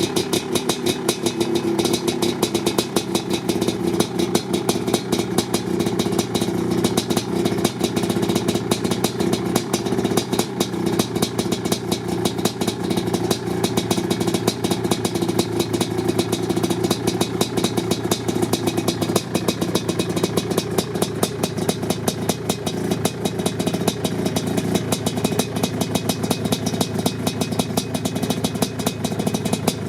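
Suzuki LT500R quad's 500cc liquid-cooled single-cylinder two-stroke engine, fitted with an FMF Fatty pipe and Powercore silencer, running at a steady speed with fast, even firing pulses and little change in pitch.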